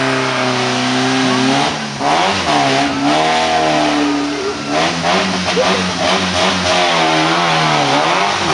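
Off-road trial buggy's engine revving up and down as it crawls over rock slabs, its pitch rising and falling several times.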